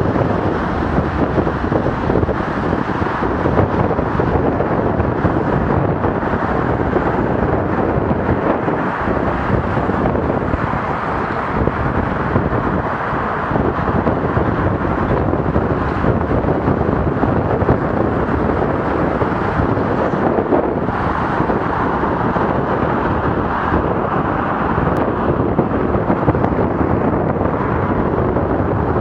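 Loud, steady wind noise buffeting the microphone of a camera on a moving bicycle, mixed with road noise.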